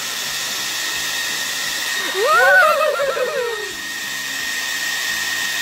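Hair dryer running with a steady whir and a high whine. About two seconds in, a baby lets out a drawn-out, wavering vocal sound lasting about a second and a half.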